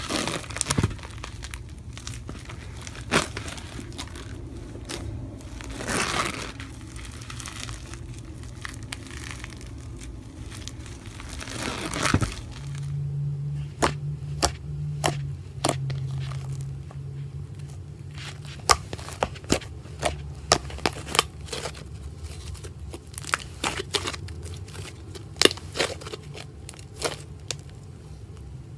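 Hands squishing and kneading white slime in a plastic bowl, with crackling and crunching as the crumbly mass is squeezed, then sharper pops and clicks in the second half as the smooth, stretchy slime is pressed and pulled.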